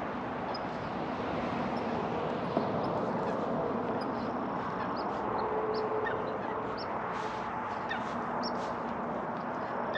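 Steady outdoor background noise with scattered short, high chirps from small birds.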